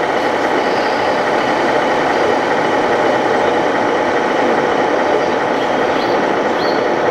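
Steady, even din of a busy exhibition hall around radio-controlled model trucks, with the trucks' electronic engine sound modules running. A couple of faint short chirps come near the end.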